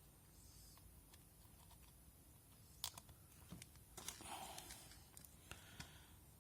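Near silence with a few faint sharp clicks and a brief soft rustle of handling, as the magnetic cable head is moved onto the next USB-C plug.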